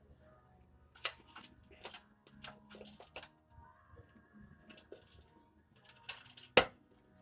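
Plastic wire-harness retaining clips being worked loose from a car's metal radiator support: irregular clicks and rattles, then one loud sharp snap near the end.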